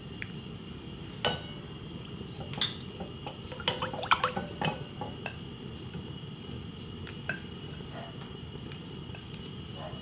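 Scattered clinks and taps of a small glass bowl and utensils against a stainless steel pot as ingredients go into the broth, with a quick cluster of knocks and small splashes about four seconds in, over a steady faint hiss.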